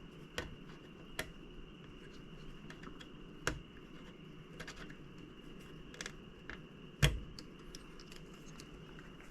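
Scattered light clicks and taps of tools and small metal parts being handled while a graphics card is taken apart, with one sharper knock about seven seconds in.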